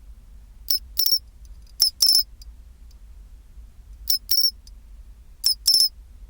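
Pine cricket (matsumushi, Xenogryllus marmoratus) singing its high, clear "chin-chiro-rin" call: four short phrases, each a quick note followed by a longer trill.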